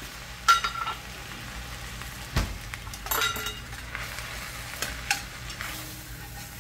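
Spinach and onion being stirred with a metal spoon in a stainless steel pot over medium-low heat, over a soft steady sizzle. The spoon clinks with a brief ring against the pot about half a second in and again around three seconds in, with a dull knock between.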